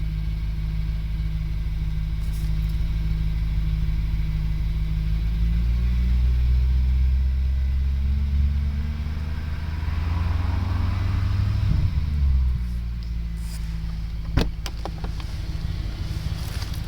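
Audi car running with a whirring noise; the pitch rises over several seconds and drops back about twelve seconds in. A sharp click near the end.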